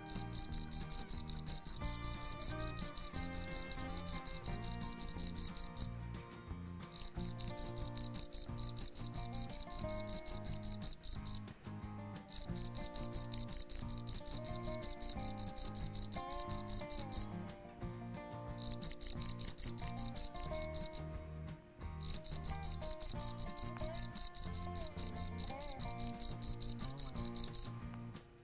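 Male field cricket stridulating its calling song: a loud, high-pitched chirping pulsed rapidly in long bouts of several seconds, each broken off by a pause of about a second.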